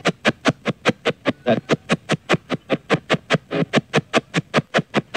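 Spirit box radio sweeping through stations: an even, fast chopping of static and clipped snatches of broadcast sound, about six a second, with a few slightly longer radio fragments caught along the way.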